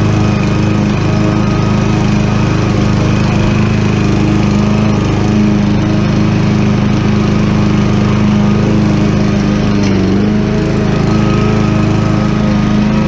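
Craftsman M130 push mower's 159 cc single-cylinder OHV engine running steadily at cutting speed while the blade mows grass, with the deck set at its lowest height. The engine note sags briefly under load about ten seconds in, then recovers.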